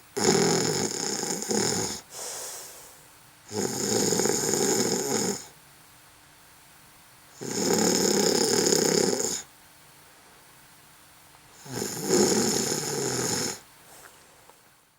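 Snoring: four long snores about four seconds apart, each lasting about two seconds, with quieter breathing between them.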